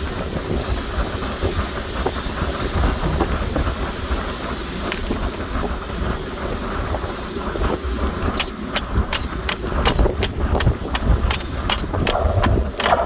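Stick arc welding: a steady crackling hiss over a low rumble. From about eight seconds in, sharp ticks come about three times a second.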